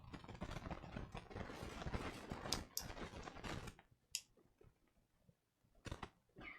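Small plastic building bricks clattering and clicking as they are handled and pressed together. The rattling is dense for the first three and a half seconds, then gives way to a few single clicks.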